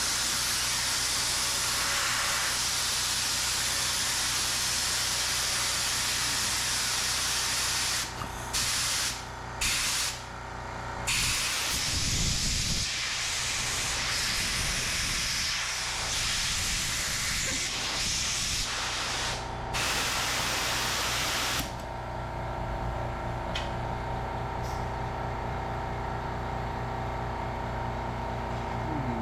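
Compressed air hissing steadily out of a Kanbol air-powered can crusher, cutting off and back on a few times about eight to eleven seconds in and stopping about three-quarters of the way through, leaving a low steady hum. The escaping air comes from a connection the owner missed hooking up during assembly.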